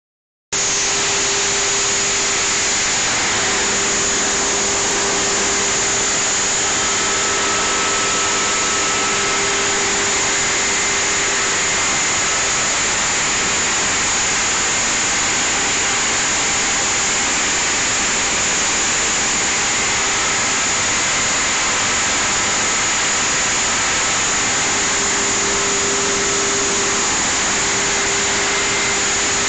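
Feed-processing machine running: a loud, even mechanical noise with a faint steady hum, starting about half a second in and not changing.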